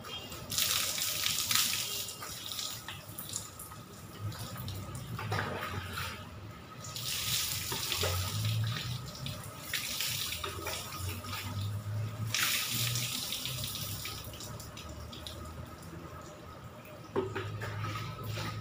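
Water poured from a plastic dipper over a person's head and body, splashing onto a wet concrete floor. It comes in several pours a few seconds apart, with quieter dipping and trickling from a bucket between them.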